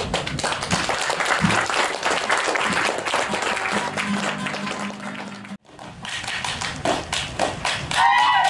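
Clapping and applause over strummed guitar music, broken off abruptly about two-thirds of the way through. After that come sharp hand claps from a seated dance and a shouted call near the end.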